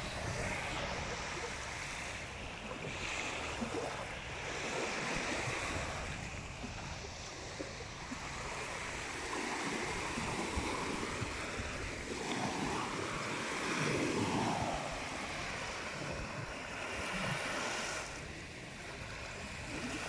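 Small waves breaking and washing up a sandy beach, the surf swelling and ebbing every few seconds, with wind on the microphone.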